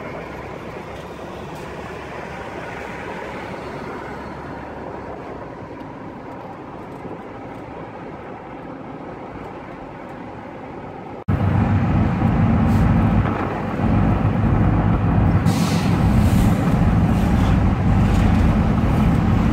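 Road and engine noise of a moving vehicle. About eleven seconds in, an abrupt cut brings a much louder, steady engine drone.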